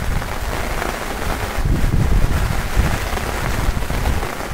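Heavy rain pouring down onto a lake, a dense steady hiss, with an irregular low rumble underneath that grows heavier about one and a half seconds in.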